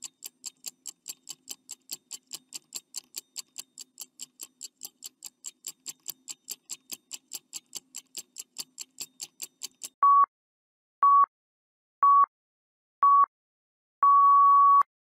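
Countdown-timer sound effect: fast, even clock ticking at about four to five ticks a second. About ten seconds in it gives way to four short beeps a second apart and a final longer beep, signalling that the time is up.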